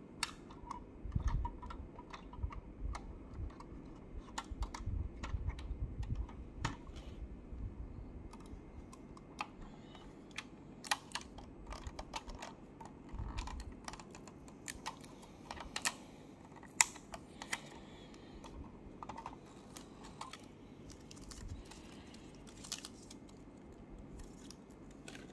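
Irregular small clicks and taps from handling a 1:18 diecast model car as its clear packing tape is peeled off and the car is turned over. There are soft low bumps in the first several seconds and one sharper click about two-thirds of the way through.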